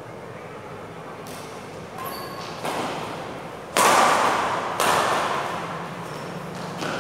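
Badminton rally in a large echoing hall: racquets strike the shuttlecock about six times at irregular intervals, the loudest hit about four seconds in, each followed by a long reverberant tail. A short high squeak comes about two seconds in.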